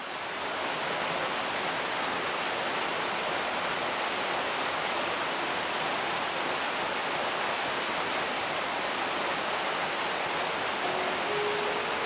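Waterfall pouring forcefully down a rugged rock face, about two tonnes of water a minute: a steady, dense rush of falling water that swells up over the first second and then holds even.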